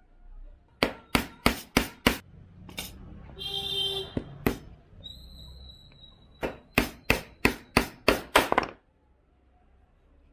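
Small hammer tapping thin nails into the wooden strips of a small mould frame. There is a quick run of about five taps, then two single taps, then a run of about eight taps at roughly three a second.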